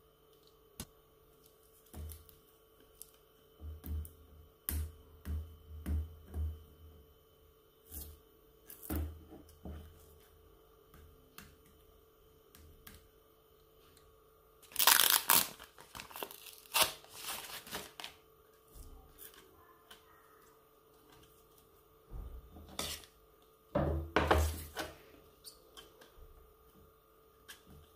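Paper label being torn and peeled off a tin can of sweetened condensed milk, in ripping and crinkling bursts, the loudest about halfway through and again near the end, with low knocks from handling the can.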